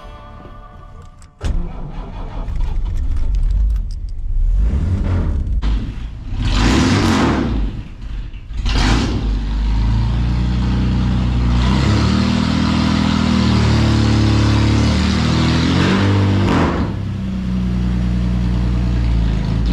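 1954 Chevrolet's engine starting about a second and a half in, revved twice, then running steadily as the car drives slowly forward.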